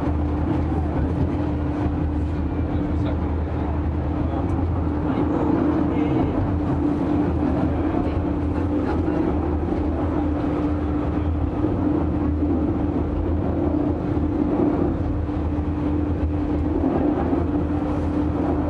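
Funicular railway car running down its track, heard from inside the car: a steady rumble with a constant mid-pitched hum.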